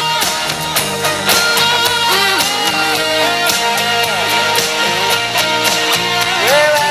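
Instrumental break in a pop ballad: a lead melody that slides between notes over a steady drum beat, with no singing.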